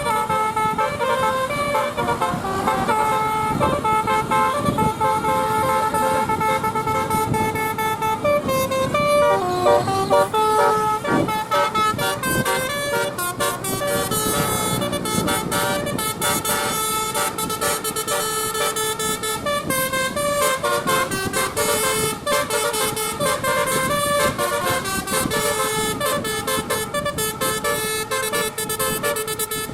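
Bus telolet 'basuri' horn, a set of top-mounted horn trumpets, playing a tune in long held notes that step from pitch to pitch. Past the middle the notes change faster, with a quick clicking patter among them.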